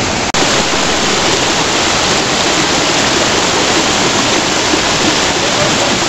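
Waterfall rushing: a loud, steady roar of falling water that briefly cuts out about a third of a second in.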